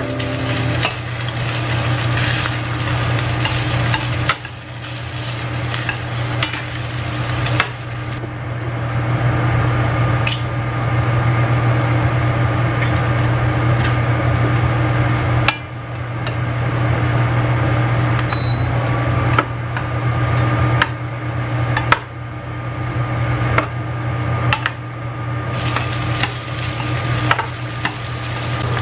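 Fried rice with diced sausage sizzling in a stainless steel skillet while a spatula stirs and scrapes it, with sharp clicks of the spatula against the pan every second or two. A steady low hum runs underneath.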